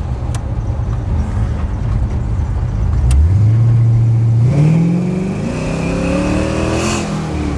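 Cammed 6.0 L LS V8 in a 1970 Cutlass, heard from inside the cabin while driving. It runs at low revs, steps up about three seconds in, then climbs steadily under acceleration from about four and a half seconds and drops back near the end.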